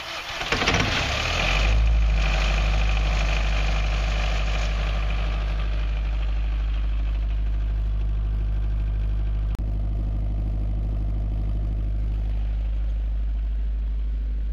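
20 kVA diesel generator set, converted to burn vegetable oil, running steadily with a deep, even hum. It is loudest in the first two seconds, then settles to a constant drone.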